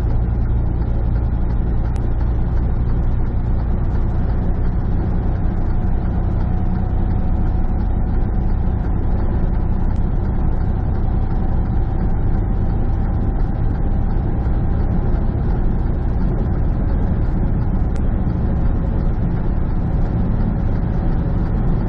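Heavy truck's engine and road noise heard from inside the cab while cruising at steady speed, a constant low drone.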